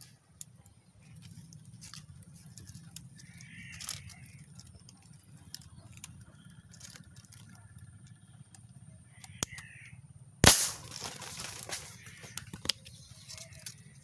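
A single sharp marble gun shot about ten seconds in, followed by about a second of noisy clatter. A few faint bird calls sound before it.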